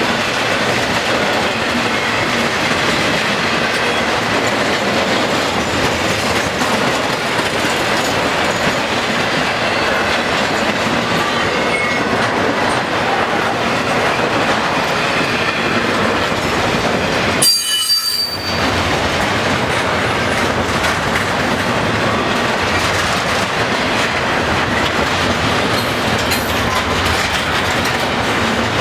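Double-stack intermodal well cars rolling past: a steady noise of steel wheels on rail, with faint wheel squeal at times and a short break in the sound about two-thirds of the way through.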